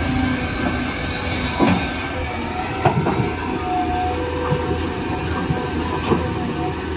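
Toy RC excavator's small electric motors and plastic gearboxes whirring steadily, with a few sharp clicks.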